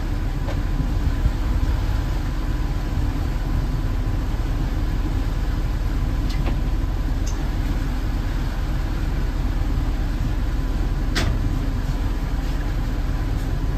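A motor cruiser's engine runs with a deep, steady drone while the boat is underway, heard from the helm. A faint steady whine sits above it, with a sharp click about eleven seconds in.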